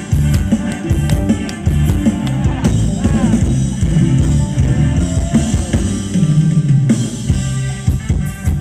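Thai ramwong dance music played by a live band through loudspeakers: drum kit and bass guitar keeping a steady, upbeat beat.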